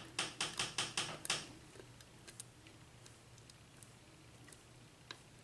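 Lock pick working the pins of a Sargent 6-pin mortise cylinder: a quick run of about six scratchy strokes in the first second and a half, then faint scattered clicks. The pick is working pin 1, which has not yet set.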